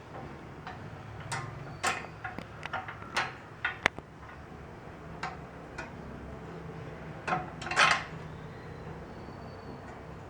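Irregular hard clicks and knocks of stand parts being handled and fitted together as the lower connecting rod is attached to the foot pedal of a hands-free sanitizer dispenser stand, with the loudest cluster of knocks near the end.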